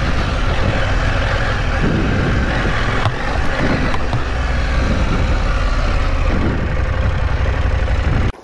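Motorcycle riding at speed: a steady mix of engine and wind noise with a heavy low rumble. It cuts off suddenly near the end.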